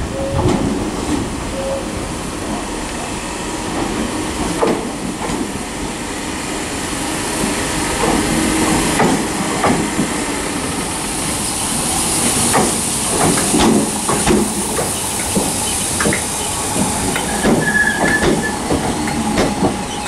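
Class 313 electric multiple unit standing at the platform: a steady hiss of air that grows stronger about halfway through, with scattered clicks and knocks.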